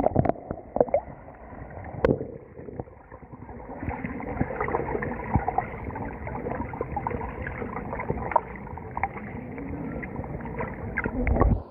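Muffled water sounds: irregular splashing and gurgling with scattered knocks.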